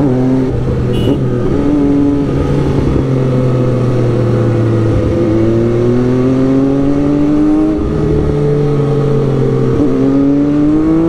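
Sport motorcycle engine heard from the rider's seat, running steadily and then accelerating, its revs climbing and dropping suddenly twice in the second half as it upshifts on a quickshifter. Wind rushes on the microphone throughout.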